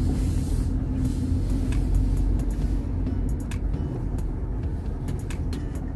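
Inside a car's cabin driving slowly: steady low engine and tyre noise, with scattered light clicks, more of them in the second half.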